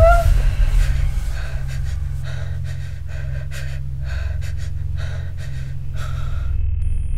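A woman gasps, then breathes rapidly and audibly in fright, about two breaths a second, over a steady low hum; the breathing stops about six and a half seconds in.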